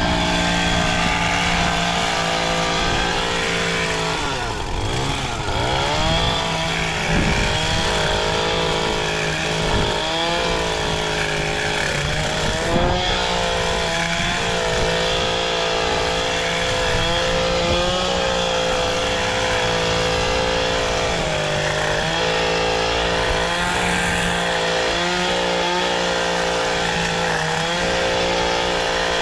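Gas-powered Echo hedge trimmer's small two-stroke engine running at high revs while cutting shrubs. Its pitch dips and comes back up several times, most deeply about five seconds in.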